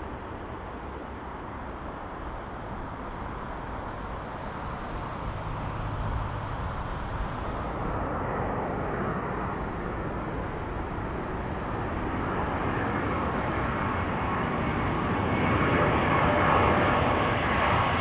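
Jet airliner approaching to land, its engine noise a steady rumble growing louder throughout, with a faint engine whine coming in over the last few seconds.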